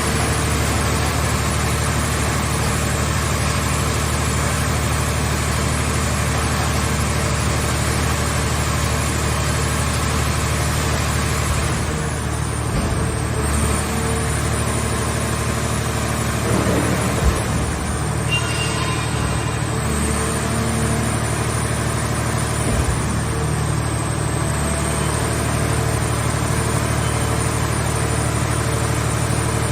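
The power unit of a mobile car shell baler, an engine running steadily at an even speed, with a couple of brief knocks in the second half.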